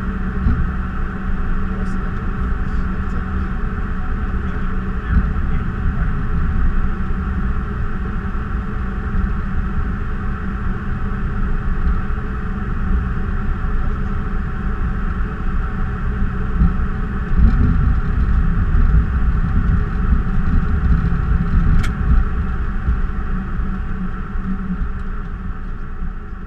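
Cockpit noise of an Embraer E190 rolling out and taxiing after landing: a steady hum of the engines and airflow over a low rumble of the wheels on the pavement, the rumble growing louder about two-thirds through.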